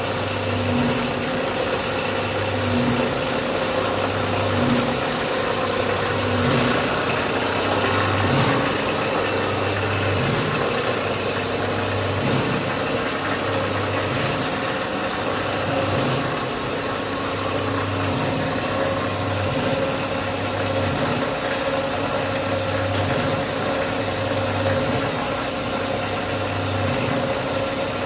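Steady machinery drone of a running cast stretch film extrusion line, with a low hum that swells and fades about every second and a half.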